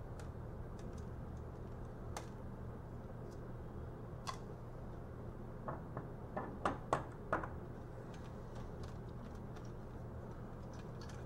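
Scattered light clicks and taps of a laptop's thin sheet-metal shield and circuit board being handled and pried apart, with a quick cluster of sharper clicks a little past the middle. A steady low hum runs underneath.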